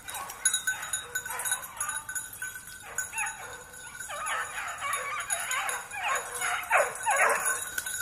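A pack of petit basset griffon vendéen hounds giving tongue, repeated yelping cries that come sparsely at first and then thick and excited from about halfway through: hounds crying on a scent during a hunt.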